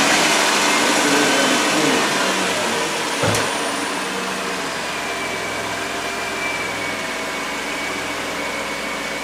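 2003 Chrysler Town & Country's V6 engine idling just after being started for a leak test following a water pump replacement, the level easing down over the first few seconds. A single knock about three seconds in.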